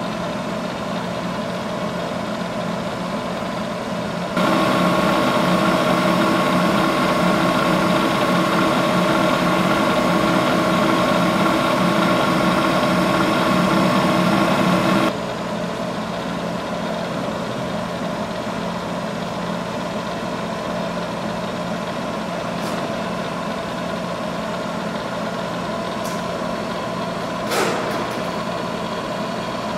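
1989 Bridgeport Series 1 vertical milling machine running with a steady motor hum. About four seconds in, a louder whining hum cuts in, adding higher tones, and it stops suddenly about eleven seconds later. A single clunk comes near the end.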